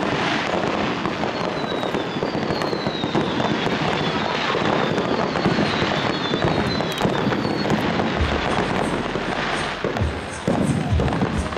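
Aerial fireworks display: continuous crackling and popping of bursting shells. Several falling whistles sound in the first half, and a few deep thumps come near the end.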